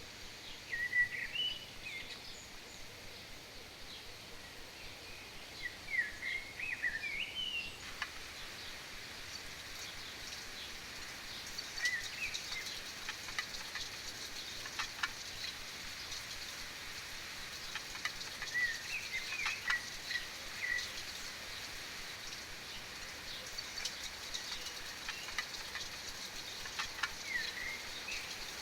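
Birds chirping in short groups of quick, warbling notes every few seconds, over a steady high hiss with a few faint ticks scattered through.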